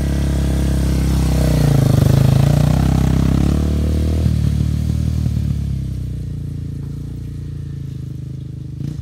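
Small quad (ATV) engine running under throttle as it rides past close by, loudest and bending in pitch about two seconds in, then fading as it rides away.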